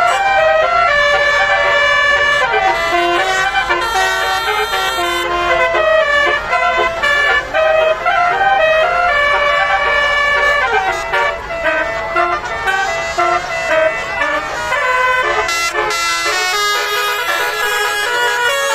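Bus 'telolet' multi-tone air horn playing a melody, its notes stepping up and down in pitch every fraction of a second.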